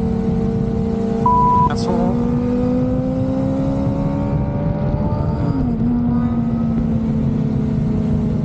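Sportbike engine running at cruise with wind noise on the microphone; its pitch climbs gradually, then dips briefly about five and a half seconds in and runs steady again at a slightly lower pitch. A short, loud, steady beep sounds about a second in.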